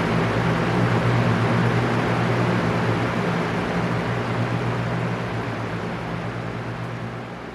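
Electric fan running steadily: an even rush of air over a low hum, fading out near the end.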